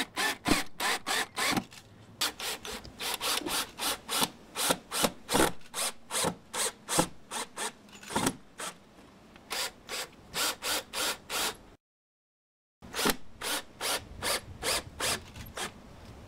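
Cordless drill driving screws through a metal door jamb shield into the wooden jamb, with a run of sharp clicks at about three to four a second. The clicking cuts out for about a second a little past the middle, then carries on.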